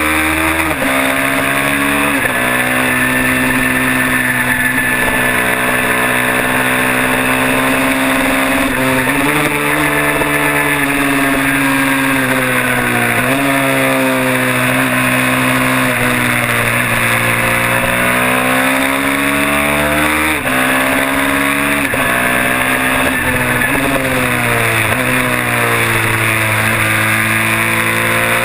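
Kawasaki mini twin race bike's twin-cylinder engine running hard at speed. Its pitch climbs steadily under throttle, then drops or jumps sharply at gear changes and braking, several times over.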